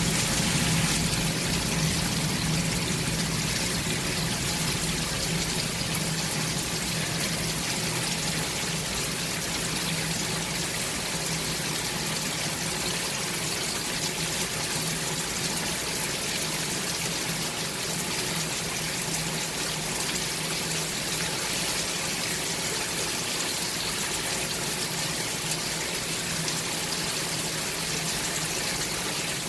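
Water spraying steadily from a shower head, an even hiss of many fine streams splashing down.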